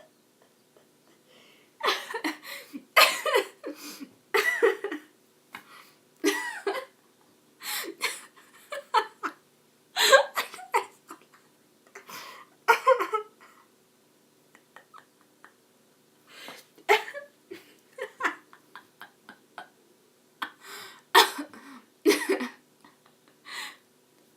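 A young woman laughing uncontrollably in irregular, breathy bursts, with short pauses between the fits.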